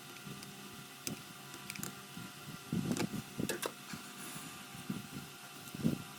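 Small plastic model parts and tools being handled on a workbench: scattered light clicks and taps, with a few closer together about three seconds in and another near the end, over a faint steady hum.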